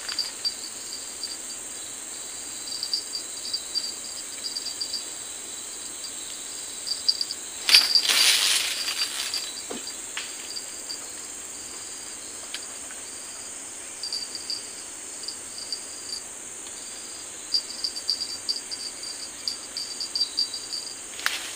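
Insects chirping in clusters of quick, high-pitched pulses that come and go, over a steady high insect drone. About eight seconds in there is a brief, louder rustling swish.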